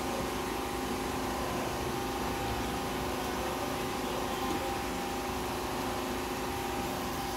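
A steady hiss with a faint hum under it, from mince simmering in its own liquid on a hot iron tawa over a lit stove.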